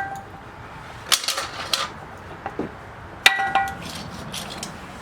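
Small metal parts and hand tools being handled: a cluster of light clicks and rattles, and two sharp ringing metallic clinks, the louder one a little past three seconds in.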